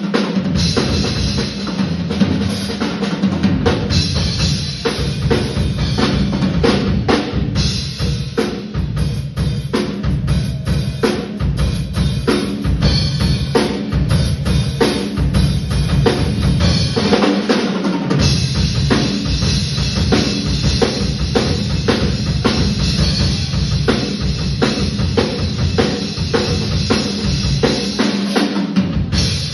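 Drum kit played as an unaccompanied solo: fast, dense bass drum, snare and cymbal strokes, with the bass drum dropping out briefly a few times.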